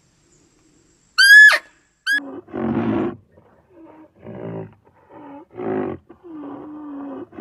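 A sharp, high squealing call about a second in, then an animal grunting and roaring: a run of short, deep, rough calls, the last one drawn out. The deep calls come with pictures of white rhinoceroses.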